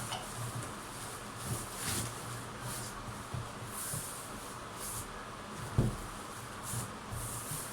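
Packaging being handled while a boxed microwave oven is unpacked: scattered rustles and scrapes, with one sharp thump about six seconds in.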